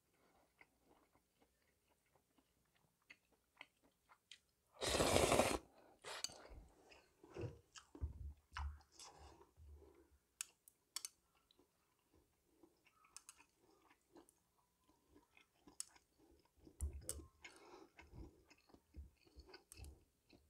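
Close-up eating of saucy instant stir-fried noodles with bacon. There is one loud slurp of noodles about five seconds in, then wet chewing and lip smacks with scattered sharp clicks.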